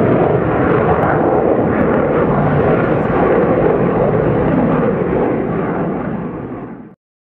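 Jet noise of a RAAF F-111 passing in afterburner during a dump-and-burn, from its two TF30 afterburning turbofans. A loud, steady noise fades from about five seconds in and then cuts off abruptly near the end.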